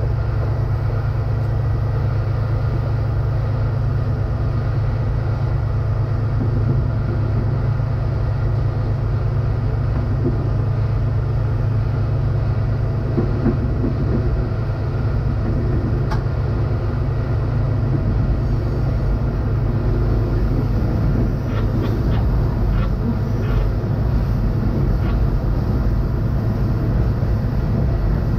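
Silver Fern diesel railcar running steadily along the line, heard from the driver's cab: a constant low engine drone with wheel-on-rail running noise. A few light ticks come about three quarters of the way through.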